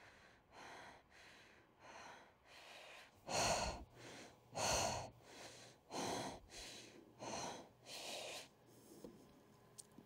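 A woman breathing heavily in and out, a breath roughly every half second, growing to the loudest gasps about three to five seconds in, then easing off and stopping shortly before the end.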